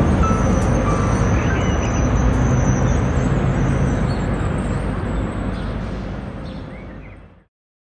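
Outdoor street ambience: a steady traffic rumble with a few faint bird chirps. It fades out over the last few seconds and ends abruptly about seven and a half seconds in.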